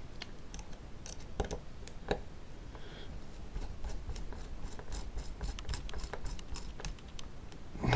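Small hex screwdriver driving tiny screws into a gimbal's sensor board mount: irregular light clicks and scrapes of metal on the screw heads, a few sharper clicks in the first couple of seconds.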